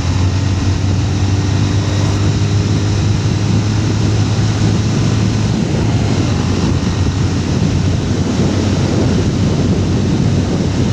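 Motorcycle running at road speed, with wind rushing over a helmet-mounted microphone. A low, steady engine hum drops away about halfway through, leaving mostly wind and road noise.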